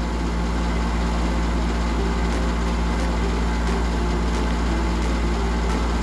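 Steady, unbroken low drone of running shipboard engine-room machinery, with a faint steady hum above it.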